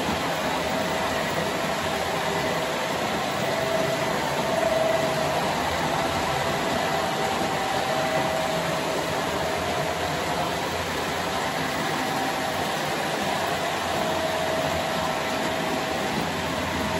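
Model freight train running steadily around the layout: a continuous rolling noise of the cars' wheels on the track, with a faint wavering hum.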